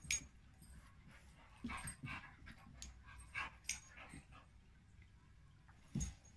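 A puppy and an adult dog play-fighting: short, irregular scuffling and small dog noises, with a louder thump about six seconds in.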